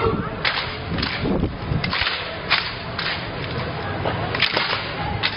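Drill rifles slapping into hands as a squad tosses and catches them one after another in a ripple of triple-spin tosses: about six sharp cracks at uneven intervals.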